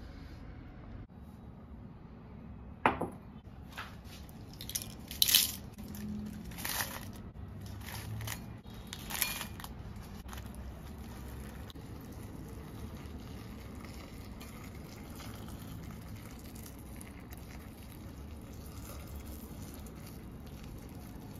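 A few sharp clinks of kitchenware in the first half, then water running in a thin stream into a glass bowl of dried red chillies.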